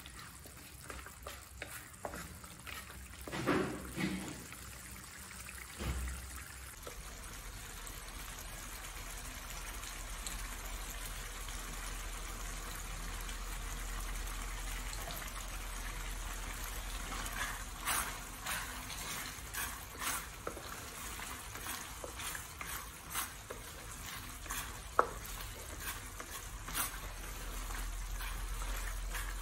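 Thick prahok ktiss sauce simmering in a metal pan while a wooden spatula stirs through it. There are a couple of knocks early on, and a run of short scraping strokes in the second half.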